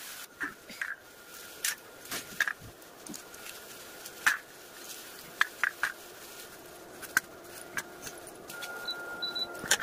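Fresh pea pods being split open by hand, with scattered sharp clicks as the pods snap and peas drop onto a steel plate, over a faint steady high whine.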